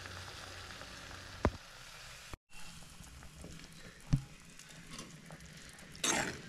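Chicken curry cooking in a clay pot: a steady sizzle with a few short knocks of a metal spoon against the pot. Near the end a brief louder scrape as the spoon is stirred through the curry.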